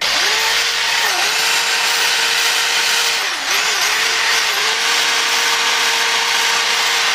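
Handheld electric sanding tool whining steadily as it grinds the powder coating off an aluminium motorcycle wheel rim, its pitch dipping briefly a few times.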